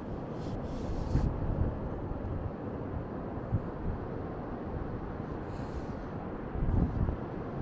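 Wind buffeting the microphone on an open beach: a steady low rumble with stronger gusts about a second in and again near the end.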